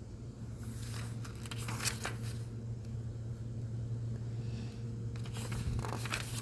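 Thin hymnal pages rustling and crinkling as they are leafed through, in two spells, about half a second in and again past five seconds, over a steady low hum.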